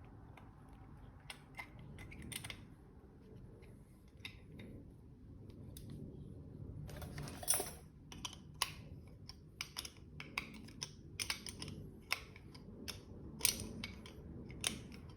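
Small hard clicks and taps of spray gun parts being handled and fitted together, a few at first and coming more often from about halfway, over a faint low hum.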